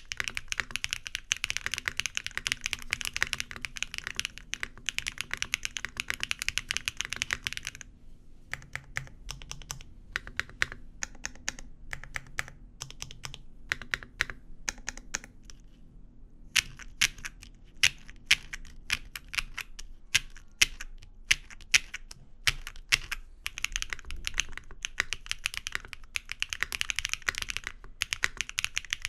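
Typing on a custom mechanical keyboard whose PCB is mounted with KeySnap between PCB and plate. It starts with a run of fast typing, slows to separate keystrokes midway, and ends with another burst of fast typing.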